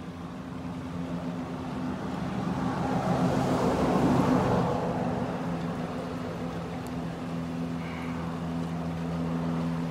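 A steady low engine hum, with a passing vehicle's noise swelling to a peak about four seconds in and then fading.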